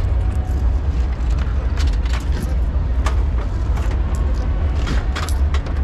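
Loud ambience of a crowded convention hall: a steady low rumble with scattered short clicks and clatter.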